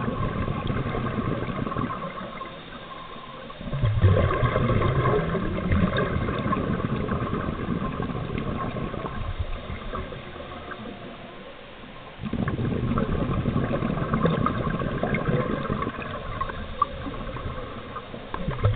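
Air bubbles from a surface-supplied diver's breathing rushing and gurgling underwater. They come in long surges with two short quieter pauses between breaths.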